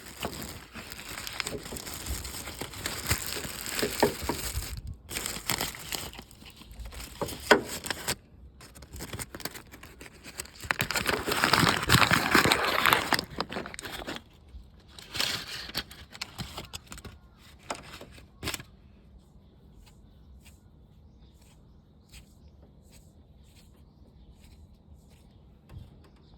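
Crinkling and rustling from hands handling a new tensioner bearing, in irregular bursts, with a sharp crack after about eighteen seconds. After that it is quiet apart from faint ticks. The new, grease-packed bearing itself makes no noise.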